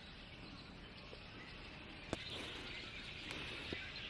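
Many small birds chirping together in a tree, a faint steady chatter that grows louder about halfway through, just after a single click.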